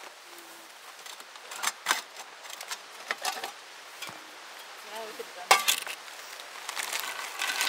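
Metal camp cookware clinking and clanking as the lid of a Firebox pan is lifted off and the pan is handled, with the loudest clank about five and a half seconds in. Near the end, a chip bag crinkles.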